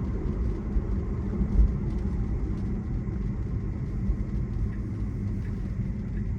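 Steady low road and tyre rumble heard inside a moving Tesla's cabin on a wet road, with one brief louder thump about a second and a half in.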